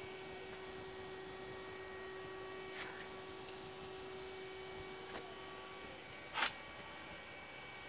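Faint room tone with a steady low hum, broken by three short soft noises, the loudest about six seconds in.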